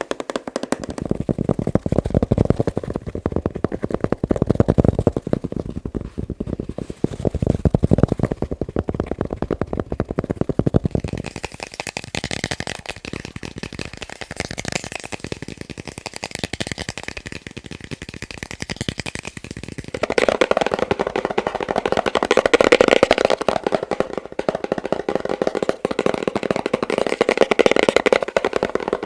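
Fast ASMR tapping on a succession of different objects, a dense stream of quick taps. The sound changes about eleven seconds in, when the taps turn brighter and thinner, and again about twenty seconds in, when they grow louder and fuller, as the tapping moves on to new objects.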